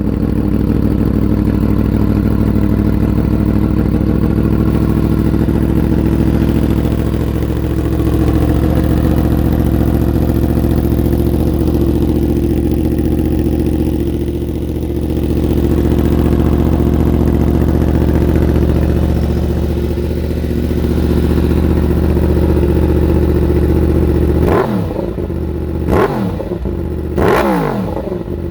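Yamaha MT-10's crossplane inline-four, fitted with a Toce slip-on exhaust and cat-delete link pipe, idling steadily just after starting. Over the last four seconds it is revved in several quick throttle blips.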